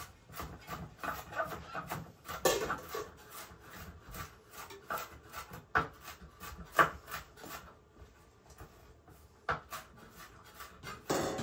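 Chef's knife chopping a red onion on a wooden cutting board: irregular runs of sharp taps, several a second, with a lull about two thirds of the way through.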